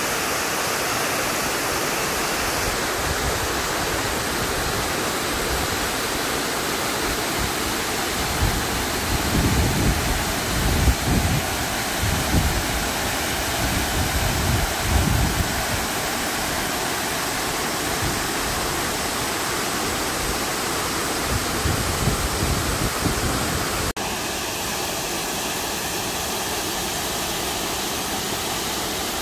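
Waterfall pouring over a rock ledge into a pool: a steady, even rush of falling water. Irregular low buffeting on the microphone comes and goes through the middle.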